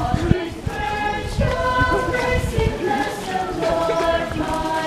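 A congregation singing a hymn together in procession, many voices on long held notes that step from one pitch to the next.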